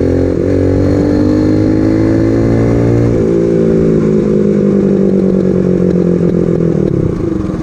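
Small 110cc four-stroke single-cylinder engine of a super pocket bike under way in third gear on a freshly rebuilt top end with a new piston being broken in. The engine note climbs for about three seconds, breaks briefly, holds steady, then drops away near the end.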